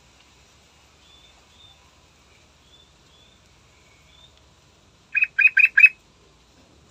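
Yellow-vented bulbul calling: a few faint, short high whistled notes, then four loud, quick chirps in a rapid run a little past five seconds in.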